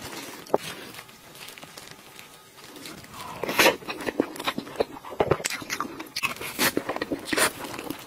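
Close-miked eating sounds: a spoonful of soft layered taro cake with boba being eaten, with wet mouth smacks and chewing clicks coming thick from about three seconds in.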